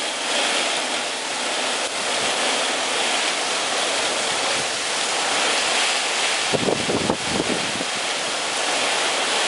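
Heavy rain coming down in sheets, a steady hiss with wind behind it. About six and a half seconds in, a gust rumbles on the microphone for about a second.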